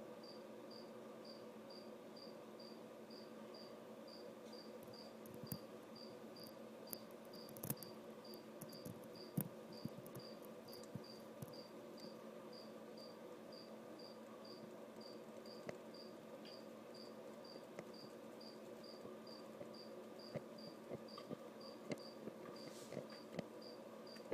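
A faint steady hum with a high, even chirp repeating about two to three times a second, like a chirping cricket, and scattered light clicks.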